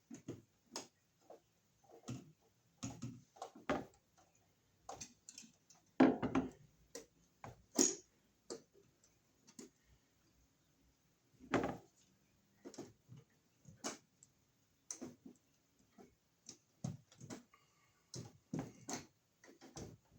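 Irregular clicks, taps and knocks of ground wires being handled and twisted together into a pigtail, with a few louder knocks about six, eight and twelve seconds in.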